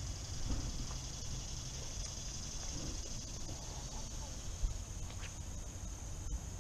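Steady high-pitched drone of insects over a low rumble, with a single light tap a little past halfway.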